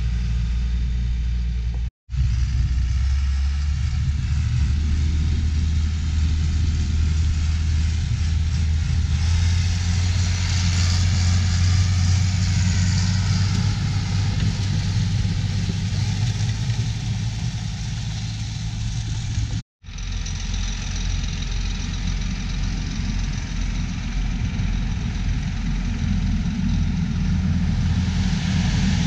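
A John Deere tractor's diesel engine runs steadily as it pulls a New Holland 195 manure spreader. The sound breaks off abruptly twice. After the second break, a New Holland L228 skid steer loader's engine is running.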